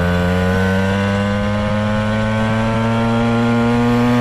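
Gas pocket bike engine running loud and steady under the rider, its pitch rising slowly as the bike gathers speed.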